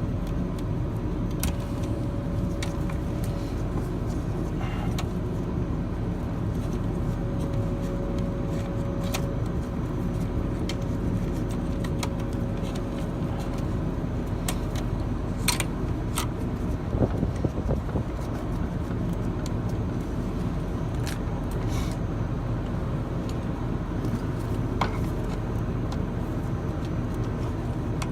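Steady low mechanical drone with scattered light metallic clicks and clinks of hand work on the unit, and a brief rattle a little past halfway.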